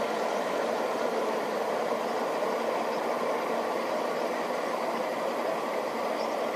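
Outboard engines of an Intermarine Z-29 speedboat running steadily under way, a constant drone with no change in pitch or loudness.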